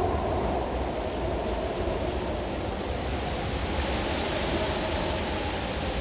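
Designed mountain wind ambience: a steady rushing wind over a low rumble, a low moaning tone fading over the first second or so, and a brighter gust of hiss swelling about four seconds in.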